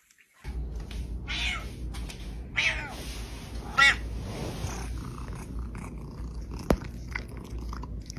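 A cat meowing three times over a low, steady rumble, with a sharp click later on.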